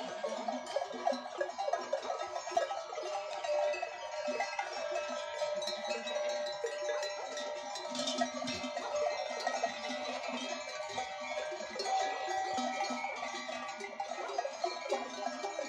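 Many metal livestock bells on a grazing goat herd, clanking and ringing all together in a dense, continuous jangle, with goat kids bleating now and then.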